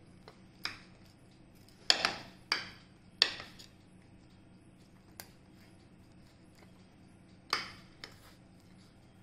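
Pizza-cutter wheel pressed and rolled through the crisp baked crust of a pizza on a plate: a handful of short crunching scrapes. The loudest is a cluster about two seconds in, with another near the end.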